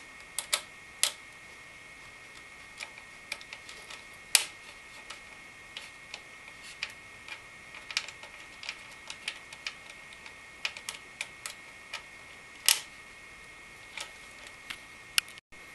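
Irregular small clicks and taps of screws and a screwdriver as a CPU water-cooler pump's retaining ring is loosely screwed down, a turn on each screw, over a faint steady high whine.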